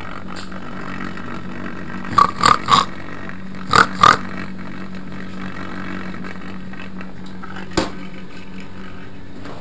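Vintage washing machine running with a steady motor hum, broken about two seconds in by a quick run of five loud clunks and, near the end, one sharp click.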